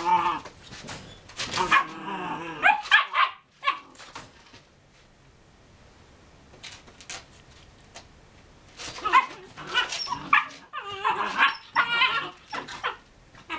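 Two Airedale terrier puppies barking and yipping as they play-fight, in bursts for the first three seconds, then a quiet pause with a few faint taps, then more barks and yips from about nine seconds in.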